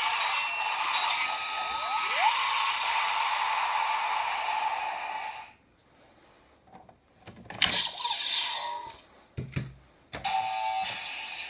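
Electronic sound effects and music from a Kamen Rider Build DX transformation toy's small speaker, with rising synth swoops. The sound cuts off about five and a half seconds in. A sharp plastic click follows a couple of seconds later, then the toy starts a new run of short beeping tones.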